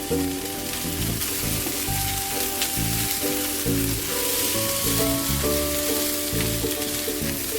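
Food sizzling in hot oil in a frying pan, a steady crackling hiss, under background music.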